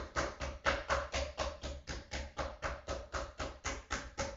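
Metal meat mallet pounding a butterflied steak flat on a wooden cutting board, in even blows about four a second.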